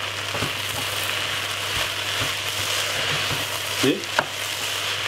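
Stir-fried vegetables sizzling steadily in a hot saucepan as they are stirred with a wooden spatula, with a few short clicks of the spatula against the pan around four seconds in, over a low steady hum.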